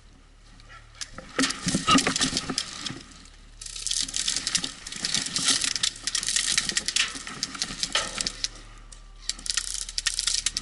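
Incoming airsoft fire: rapid clattering and pattering in three long stretches, starting about a second in, again from about four to eight and a half seconds, and once more near the end.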